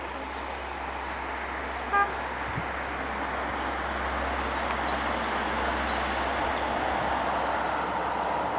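Steady outdoor rushing noise that slowly grows louder, broken about two seconds in by one short, loud toot of a vehicle horn. A few faint high chirps come and go.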